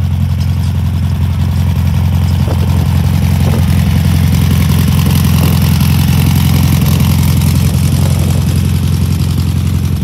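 A car engine idling steadily, a deep, even rumble.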